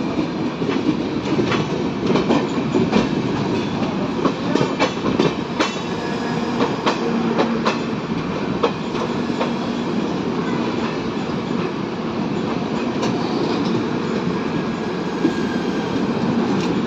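Two passenger trains running side by side on parallel tracks: a steady rumble of wheels on rail, with many sharp clicks as the wheels pass over rail joints, heard from an open coach door.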